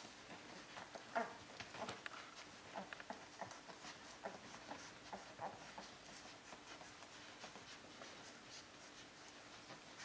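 Gordon setter puppies suckling from their mother: faint, steady wet smacking and small clicks, with a few soft squeaks in the first half.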